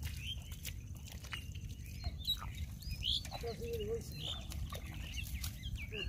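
Scattered short, high animal calls and one brief wavering call about three and a half seconds in, over a steady low rumble.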